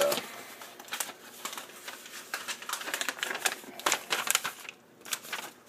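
A package and its contents being handled: irregular sharp clicks and taps over light rustling.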